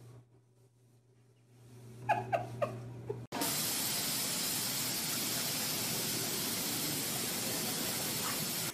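Steady, even hiss of water spraying, starting abruptly about three seconds in. Shortly before it come three brief high squeaks.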